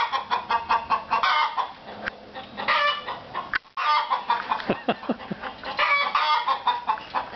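Hen clucking and cackling in long runs of rapid, repeated calls, with a brief pause about three and a half seconds in.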